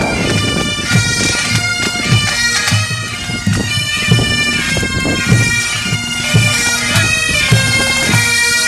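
Highland pipe band playing a march: Great Highland bagpipes sounding a melody over their steady drones, with a bass drum beating about twice a second.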